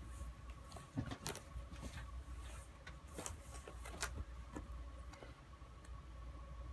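Faint, irregular plastic clicks and knocks as a cat paws at a ball-in-track toy, the ball and paw knocking against the plastic ring, over a steady low hum.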